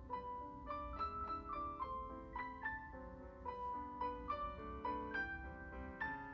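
Background music: a gentle piano melody of single struck notes ringing out, a few notes a second.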